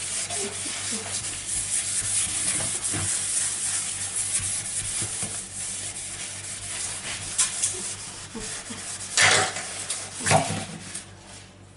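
Scouring sponge scrubbed back and forth over a soapy stainless steel sink, a continuous scratchy rubbing, with two louder strokes about a second apart near the end.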